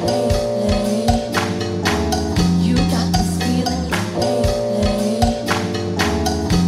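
Lo-fi house music: a steady beat of drum hits under sustained chords, with a chord pattern that repeats about every four seconds.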